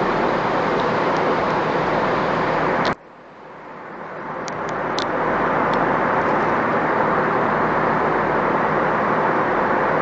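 Steady engine noise of ScotRail diesel multiple units idling in a station's train shed. About three seconds in, the sound drops away abruptly, then swells back to full over the next few seconds, with a few faint clicks.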